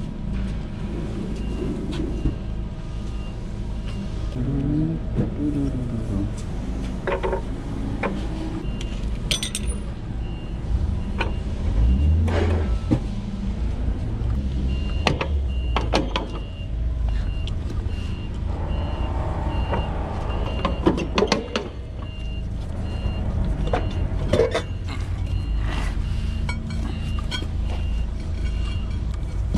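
Steady low rumble of a running vehicle engine, with a reversing alarm beeping repeatedly for the first few seconds and again through the second half. Scattered clinks and knocks of hand tools on metal.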